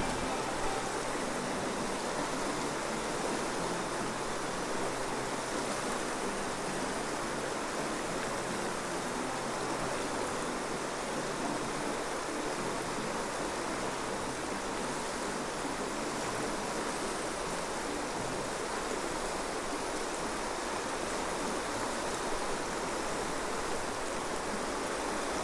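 Fast-flowing river rushing steadily over riffles and whitewater.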